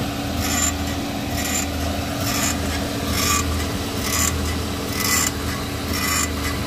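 VW Fox front steering giving a dry, iron-like creak each time the steering is turned, repeating about once a second over the steady hum of the idling engine. The mechanic traces the creak to the steering tie-rod end.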